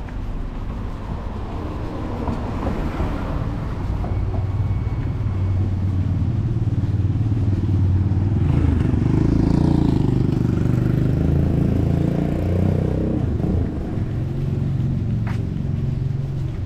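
A motor vehicle's engine passing close on the street, growing louder to a peak about halfway through, then dropping off. A single sharp click comes near the end.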